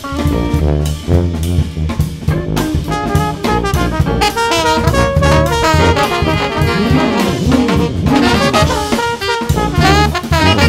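New Orleans–style brass band playing an instrumental horn passage: trumpet, trombone, tenor and baritone saxophones over drum kit, electric guitar and heavy bass.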